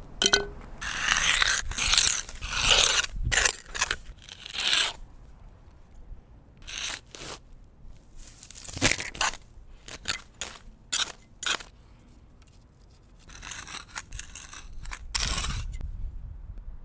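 Grass being scraped and torn out of a concrete sidewalk expansion joint in bursts of rough strokes: a quick run in the first five seconds, scattered single strokes through the middle, and another run near the end.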